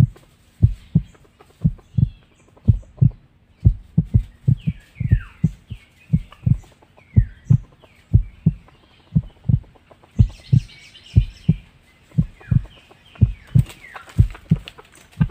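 Heartbeat-like deep thumps, mostly in close lub-dub pairs repeating a little faster than once a second, with short falling bird chirps heard over them now and then.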